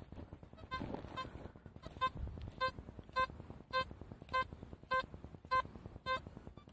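Metal detector giving a run of about ten short, identical mid-pitched beeps, evenly spaced roughly every half second or so, as the coil is swept over the grass.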